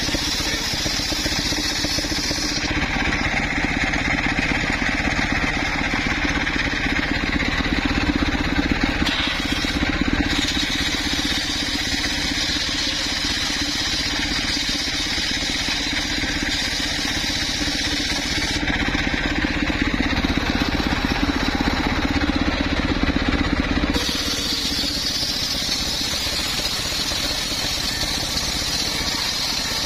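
Belt-driven circular sawmill running with its blade ripping lengthwise through a coconut-palm trunk: a steady motor drone under the hiss of the cut, which changes in tone a few times as the cut goes on.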